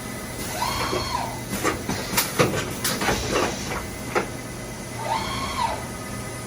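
Milltronics RW18 CNC vertical machining center running over a steady hum. It gives two short whines, each rising and then falling over about a second, with a run of sharp knocks and clanks between them.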